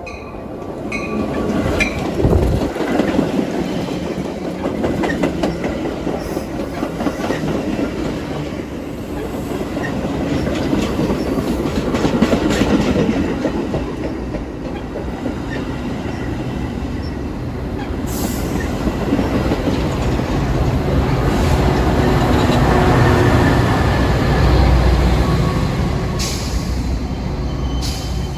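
Commuter train running into the station: wheels clattering over the rail joints, with some wheel squeal, and a deep rumble that swells near the end.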